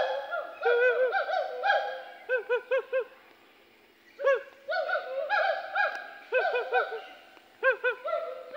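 Hoolock gibbons singing: fast series of loud whooping notes that rise and fall in pitch, several voices overlapping, with a short pause about three seconds in.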